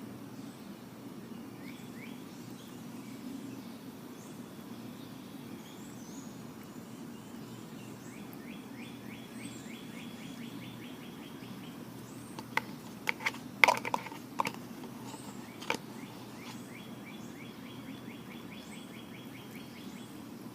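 Steady low background hum, with a faint rapid bird trill heard twice and a quick cluster of sharp clicks a little past the middle.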